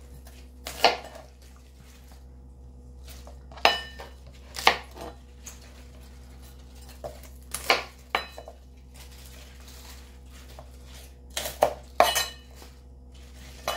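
Chef's knife slicing through pechay (bok choy) stalks and knocking on a plastic cutting board: about eight separate sharp chops at uneven spacing, some in quick pairs.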